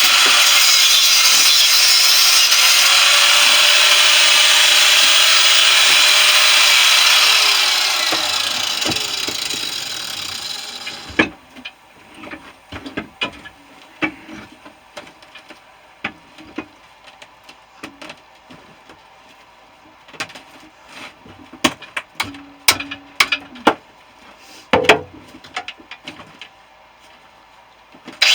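A power tool runs loud and steady as it cuts into a central air unit compressor, then winds down and stops about eight to eleven seconds in. Scattered clinks and knocks of metal being handled follow.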